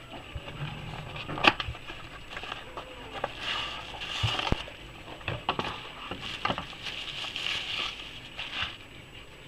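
Plastic bubble wrap crinkling and rustling as it is unwrapped from a flashlight, along with a small cardboard box being handled. A single sharp click about a second and a half in is the loudest sound.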